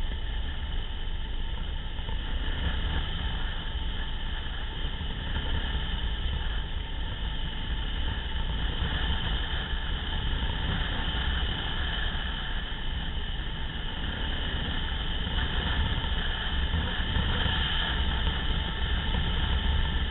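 Motorcycle riding steadily along a rough dirt track: the engine runs at an even pace under a deep, constant rumble of wind on the microphone.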